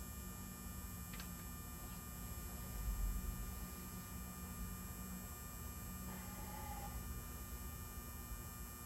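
Steady low electrical hum, with a faint click about a second in and a brief low bump about three seconds in.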